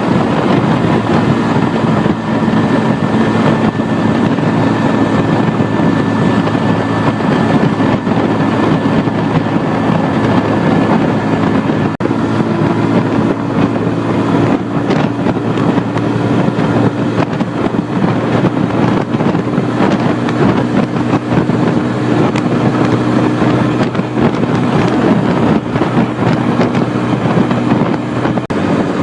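Bajaj Boxer BM 125 X motorcycle's single-cylinder engine running steadily under way, with wind rushing over the microphone.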